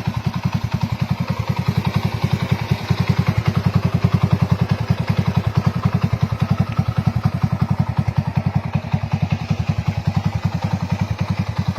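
Small motorcycle engine idling with a steady, even beat.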